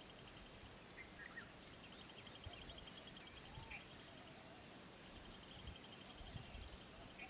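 Faint outdoor ambience: a rapid, high pulsing insect trill that stops and starts, with a few short bird chirps about a second in and again near the middle, and some soft low thumps.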